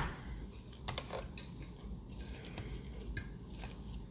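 A fork clicking and scraping against a salad dish a few times while eating: short, light clinks about a second in and again toward the end.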